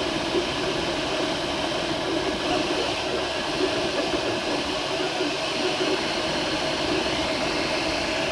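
MakerBot Replicator 2 3D printer printing PLA parts: a steady mechanical whir from its stepper motors and fan, with faint whining tones that shift slightly as the print head moves.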